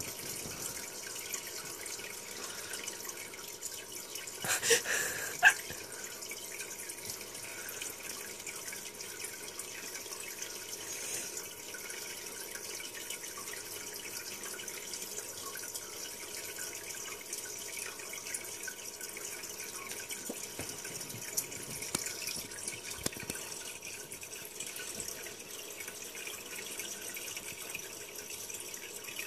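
Steady running and bubbling aquarium water, played through a laptop's speakers. A brief louder sound comes about five seconds in.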